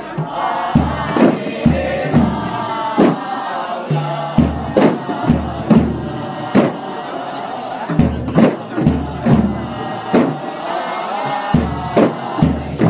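Kompang troupe playing: hand-slapped kompang frame drums with deep strikes on a large bass drum in a repeating pattern, under a group chanting a sung verse in unison.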